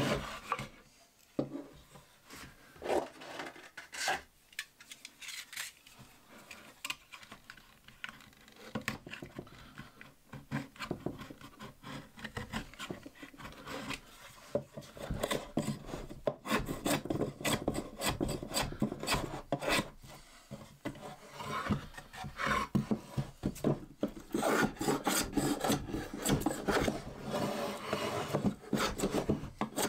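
Wood being rubbed and scraped by hand in quick back-and-forth strokes along the edges of a small wooden bee house. A few separate strokes at first, then a fast steady run of strokes from about a third of the way in, busiest in the second half.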